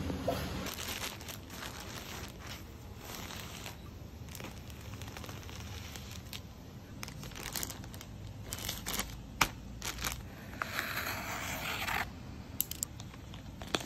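Plastic poly mailer bags being slit and torn open, with crinkling plastic and scattered sharp snips and crackles, and a longer tearing stretch near the end.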